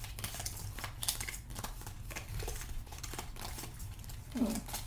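Playing cards being drawn from a deck and handled in the hands: a run of light, irregular card flicks and slides, over a steady low hum.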